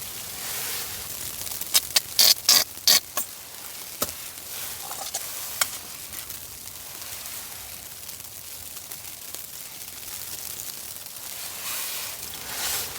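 Burger patties sizzling in a frying pan, a steady high hiss, with a quick cluster of sharp utensil clicks about two seconds in and a couple more soon after.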